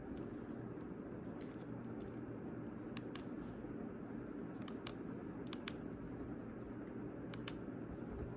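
BBQ20 thumb keyboard, built from BlackBerry Classic (Q20) keys, clicking under thumb presses: scattered sharp clicks, several in quick pairs, over a steady low hum.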